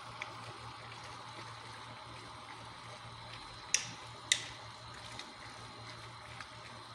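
Broth bubbling in a pot while a wooden spatula stirs it, with two sharp knocks of the spatula against the pot near the middle, about half a second apart.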